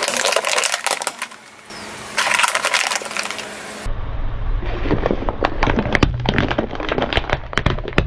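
Cracking and crunching of objects being crushed, in several short cuts. About four seconds in, a steady low rumble comes in under a quick run of sharp cracks.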